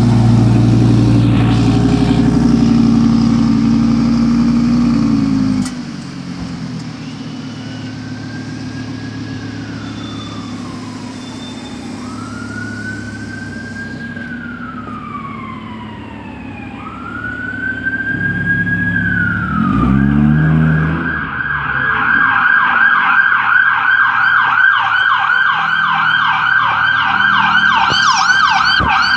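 Audi R8 V10 Plus's 5.2-litre V10 idling loudly and steadily, settling to a quieter idle about six seconds in. A siren wails up and down in the distance, then about twenty seconds in a police car's siren switches to a fast, loud yelp.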